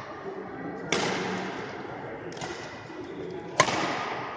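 Badminton rackets striking a shuttlecock back and forth in a rally: three sharp hits about a second and a half apart, each echoing through a large sports hall, the last one the loudest.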